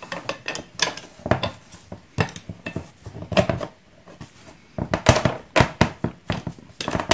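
Cast-iron 1/2-inch pipe clamp head clicking and clanking, its stamped steel clutch plates rattling, as it is fitted onto a steel pipe on a metal bench top. A quick run of clicks comes about five seconds in.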